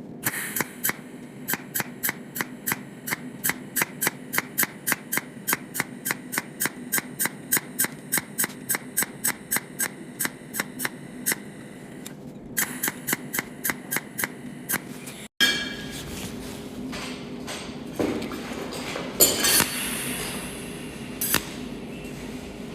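Cold welding machine firing pulsed arc spot welds one after another: a regular series of sharp snaps, about three a second, with a brief pause partway through. Later a few scattered, louder snaps over a low steady hum.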